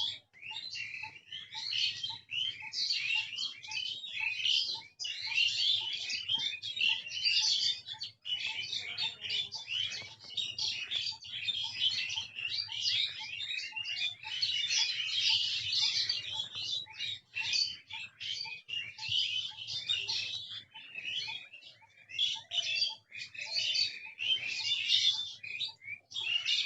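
Dense chorus of many small songbirds chirping and twittering at once, thinning briefly about three quarters of the way through.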